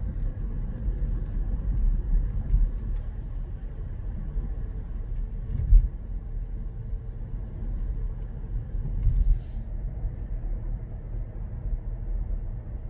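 In-cabin road and engine noise of a Volkswagen T-Cross cruising at about 55 km/h on cruise control in fourth gear: a steady low rumble, with a single low thump about six seconds in.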